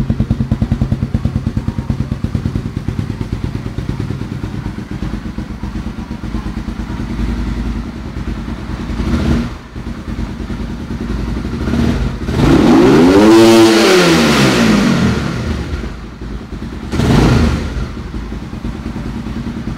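Honda CBR150R single-cylinder four-stroke engine breathing through a home-made underseat exhaust, idling with an even, lumpy pulse, then revved: a short blip a little over 9 s in, a long rev that climbs and falls back from about 12 to 15 s, and another short blip near 17 s before it settles back to idle.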